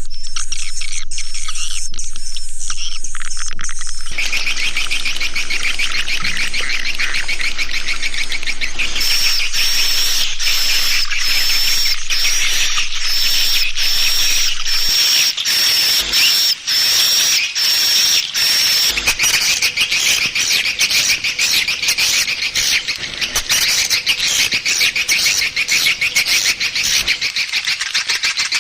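Swiftlet lure call recording: dense, rapid chirping and twittering of swiftlets, the kind played to draw swiftlets into a nesting house. The pattern changes a few times, about 4 s, 9 s and 19 s in, with a thin steady high whistle running through the middle stretch.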